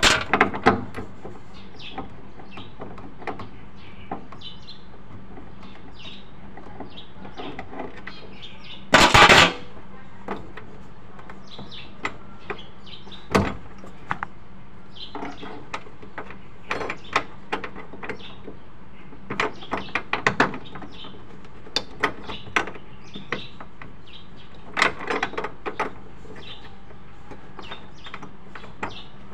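Irregular metal clicks and clinks of a T-handle socket wrench loosening the nuts that hold a fuel pump motor in the top of a fuel tank. A louder burst of clattering noise, under a second long, comes about nine seconds in.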